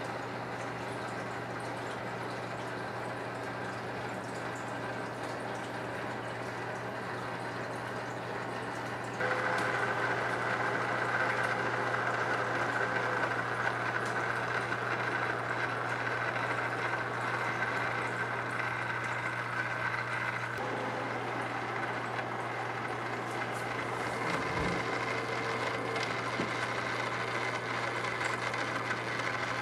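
A toy RC jeep's small electric drive motor and gears running with a steady whine, which gets louder and higher about nine seconds in.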